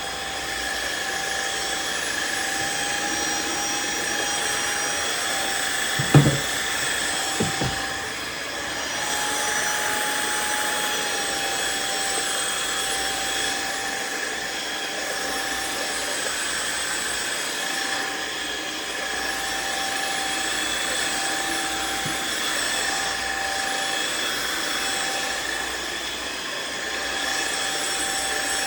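Riccar R70 floor washer running: the suction motor and dual brush rolls make a steady whine that steps slightly up and down in pitch a few times. Two short knocks about six and seven and a half seconds in are the loudest moments.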